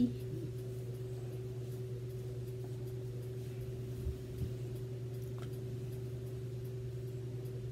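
Quiet room tone: a steady low hum with a faint steady higher tone over it, and a couple of faint soft knocks about four seconds in.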